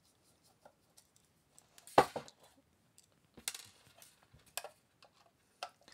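Screwdriver taking the screws out of a powder-coated metal power-supply enclosure, with the box handled on the table: scattered light clicks and metallic knocks, the loudest about two seconds in.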